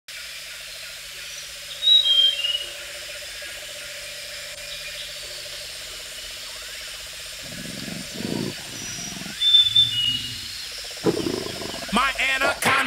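Jungle ambience: a steady background hum with birds calling in short falling notes, and low animal growls in the middle stretch. Music comes in near the end.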